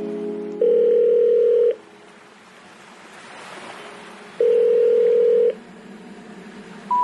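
Telephone ringback tone: a steady tone rings twice, about a second each, with faint hiss between the rings.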